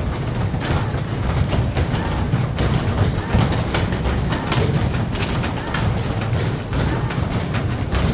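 Arcade basketball shooting machine in play: rapid thuds and knocks, several a second, of basketballs striking the backboard and rim and rolling back down the return ramp, over the machine's music.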